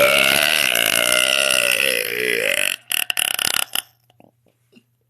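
One long, loud belch from a woman, held for nearly three seconds, then breaking up into a few short rough bits and stopping about four seconds in.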